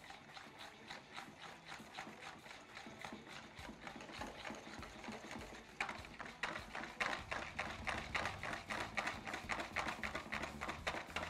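Wire balloon whisk beating a thick, stiff mayonnaise in a bowl, quick rhythmic strokes about four or five a second, the wires swishing and tapping the bowl. The strokes grow louder about six seconds in. The emulsion stays thick and does not split despite the heavy dose of oil.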